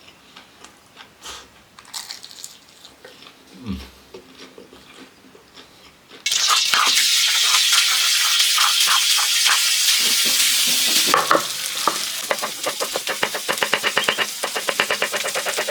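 Food frying in hot oil: after a few soft clicks, a loud sizzle starts suddenly about six seconds in, as if food is dropped into the pan, and settles into fast crackling and popping near the end.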